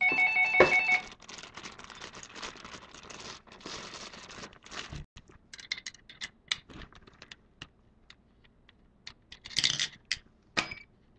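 Hands handling a car audio power capacitor with a clear plastic top: rustling, scrapes and short clicks and taps as it is turned over and its top terminal nut is worked. It opens with a loud, brief ringing tone lasting about a second.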